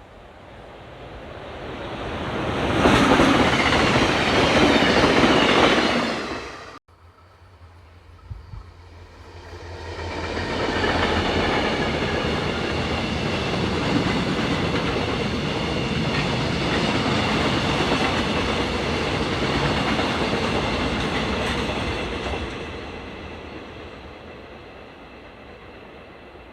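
Two trains passing close by on the rails. The first swells to a loud rushing pass and cuts off abruptly. A few seconds later a second train approaches and runs past for about twelve seconds, its wheels clattering over the rail joints with steady high ringing tones above the rumble, then fades away.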